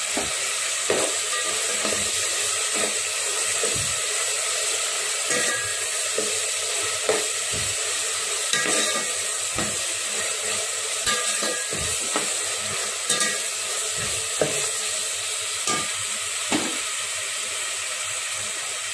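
Tomato and green-chilli masala frying in oil in a metal pot with a steady sizzle, while a metal ladle stirs it, knocking and scraping against the pot about once a second, a few strokes ringing briefly.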